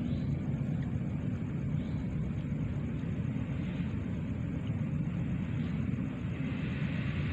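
Steady low rumbling outdoor background noise with no distinct events, and a faint high pulsing hiss above it.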